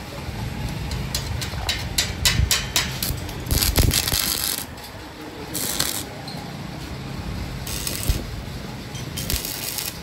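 Welding on a steel frame: several quick metal clicks and clinks, then four short bursts of arc welding, each a hissing crackle lasting under a second.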